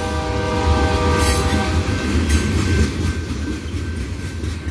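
Loaded freight cars rolling past with a steady low rumble and a couple of sharp wheel clanks. The lead locomotive's horn sounds from down the line for the first couple of seconds, then stops.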